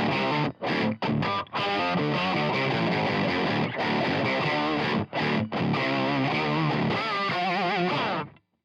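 Distorted electric guitar through a Line 6 Helix's Brit Plexi Bright amp model with an octave effect switched on, playing a run of notes with a few short breaks. It ends on a held note with wide vibrato and stops about eight seconds in.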